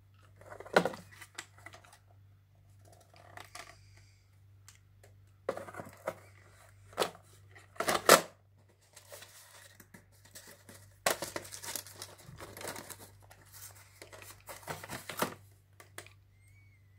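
Plastic VHS cassettes and their cardboard sleeves being handled on a table: irregular clicks, knocks and rustling. There are sharper knocks about a second in and about eight seconds in, and a longer stretch of denser rustling and clatter in the second half.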